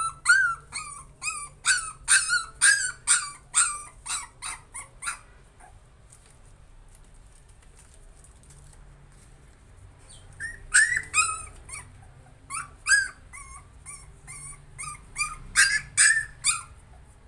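A puppy whimpering and yelping in short high-pitched cries, about two or three a second, the cries of a frightened pup. The crying stops for several seconds midway, then starts again.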